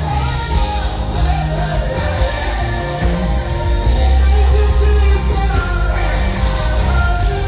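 Live band music with a singer's voice over a steady, heavy bass line.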